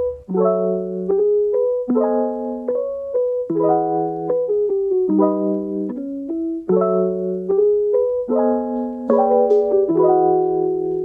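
Background music: soft piano chords struck about every second and a half over a held low note, with a light melody on top.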